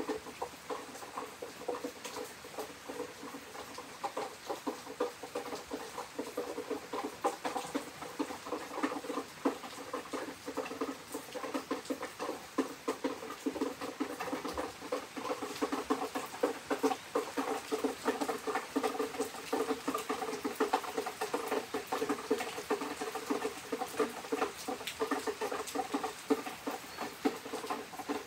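Rain pattering steadily on a hard surface, a dense continuous stream of drop impacts.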